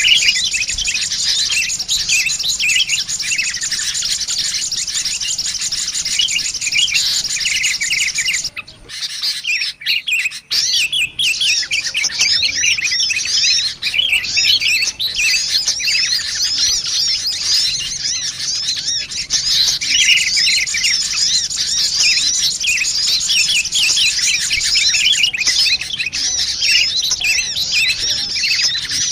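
Bird-trapping lure recording: a dense, fast stream of high sunbird chirps mixed with busy sooty-headed bulbul calls, with a brief break about nine seconds in.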